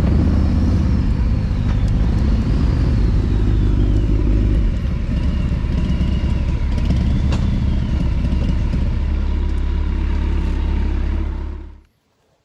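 Motorcycle engines at low speed, a Kawasaki Concours 14 carrying the microphone with a Harley-Davidson touring bike close by, over a heavy low wind rumble. The sound eases a little about five seconds in as the bikes slow to pull in, then cuts off suddenly near the end.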